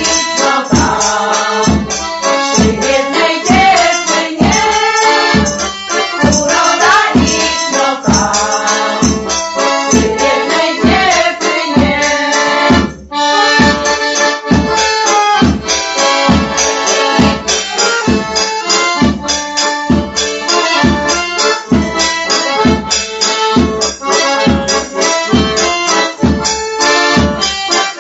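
Polish folk song played on accordion with a steady beat in the bass, and voices singing in the first half. After a short break about 13 seconds in, the accordion carries on alone.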